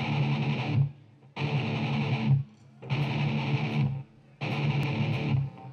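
Distorted electric guitar playing four separate chords, each held about a second and then cut off, with short pauses between them.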